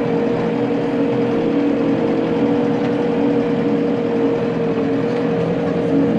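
Case 115 C tractor's engine running steadily under load while driving the PTO of a manure spreader, heard from inside the cab, with a constant whine over the engine note.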